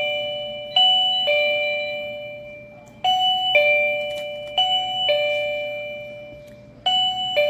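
Blutown Wi-Fi caregiver pager receiver sounding its loud alert after a call button is pressed: a two-note ding-dong chime, high note then lower, repeated four times, each pair ringing out before the next.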